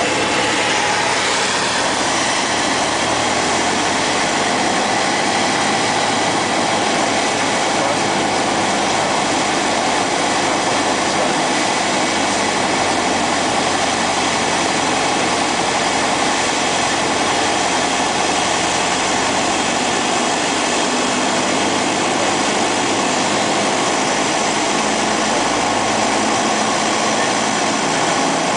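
Cessna 172's piston engine and propeller running steadily, heard from inside the cabin with airflow noise, on final approach.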